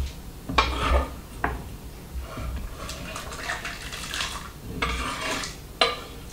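Kitchen knife scraping diced carrot off a wooden cutting board into a stainless steel pot, with a few sharp knocks near the start and again near the end, and a scratchy scraping stretch in between.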